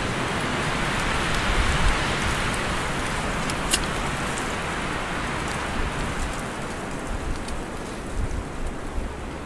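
Small stick campfire of ice-coated wood hissing steadily, with a few sharp crackles as the wet wood starts to catch.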